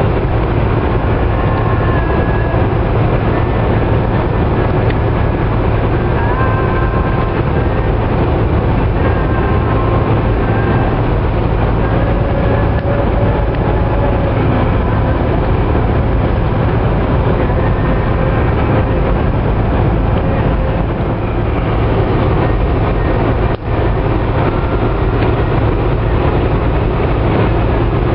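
Steady engine drone and tyre noise heard from inside a vehicle cruising on a sealed highway, with a strong low hum. The sound dips briefly about three-quarters of the way through.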